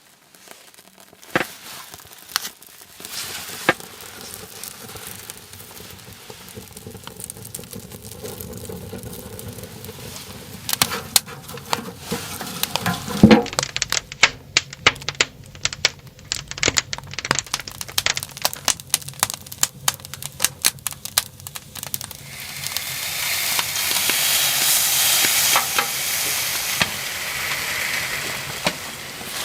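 Wood stove being lit, with kindling crackling and popping and a loud scrape about halfway through. For the last seven seconds or so, food sizzles loudly in a frying pan on the stove.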